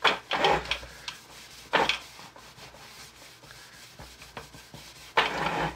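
A paper towel rubbing against a hard plastic game piece as it is wiped clean, in three brisk scrubbing strokes (at the start, about two seconds in, and near the end) with quieter wiping between.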